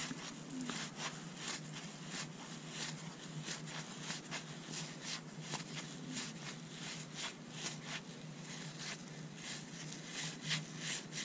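1981 Fleer baseball cards being flipped one at a time from stack to stack in the hands: soft, irregular clicks and slides of card against card, about two or three a second, over a faint low hum.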